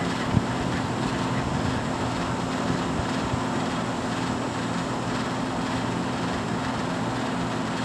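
Steady low mechanical hum, with one sharp knock about a third of a second in.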